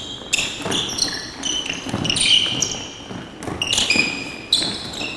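Sneakers squeaking on a hardwood basketball court, many short high squeaks, with a basketball bouncing and thuds of footfalls during a half-court drill.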